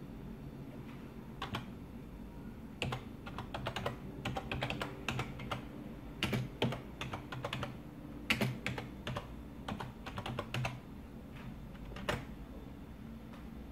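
Typing on a USB computer keyboard: irregular runs of key clicks with short pauses between them, stopping about twelve seconds in.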